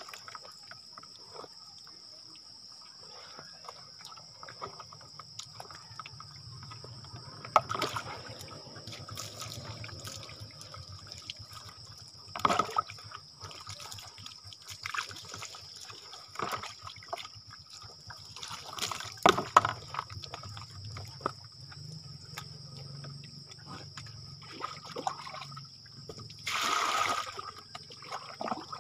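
Water splashing and trickling as someone bathes, pouring water from a plastic container over the body. Several louder splashes come and go, the longest near the end.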